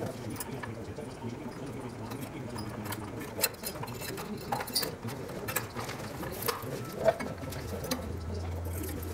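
Light, scattered clicks and rustles of hands fitting black silicone tubing over safety wire, with a sharper click about three and a half seconds in and another about seven seconds in.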